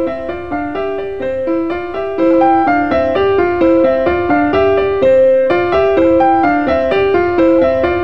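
Background music: a keyboard, piano-like in tone, playing a steady run of short notes, about four a second, getting louder about two seconds in.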